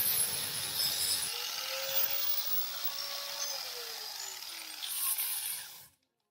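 Angle grinder grinding a brake caliper, then running free with a steady whine. About three and a half seconds in it is switched off and spins down, its whine falling in pitch, and the sound cuts off suddenly near the end.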